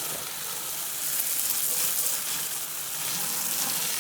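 Foaming coil cleaner fizzing on a window air conditioner's coils: a steady wet hiss, a little louder for a second or so near the middle.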